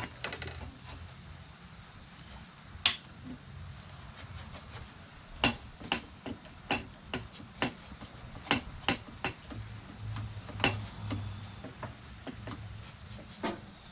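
Irregular light metal clicks and knocks, a dozen or so scattered taps, as an HMF aftermarket muffler is worked by hand onto the exhaust header pipe and its clamp.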